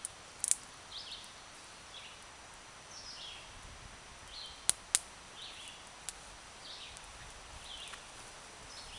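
Small birds chirping repeatedly in short high calls, one every half second to a second, with a few sharp cracks, two of them close together about five seconds in.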